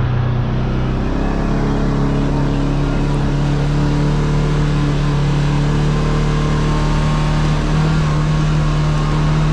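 Side-by-side UTV engine running as the machine drives off, steady under way with its pitch rising a little near the end, over tyre and road noise.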